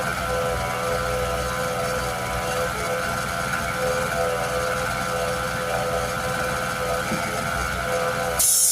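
Portable generator engine running steadily at an even pitch. Near the end, a loud burst of air hissing lasts about a second.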